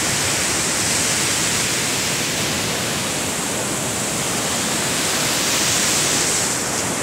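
Sea surf breaking on a beach: a steady, even rush of waves with no break.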